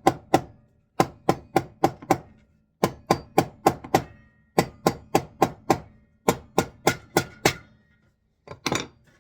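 A hammer beating a sheet of tin, dulling and denting it. The blows come in quick runs of about five, about three a second, with short pauses between runs.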